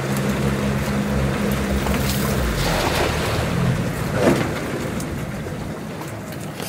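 Pontoon boat's outboard motor running at low speed, a steady low hum that fades after about two and a half seconds over a wash of noise.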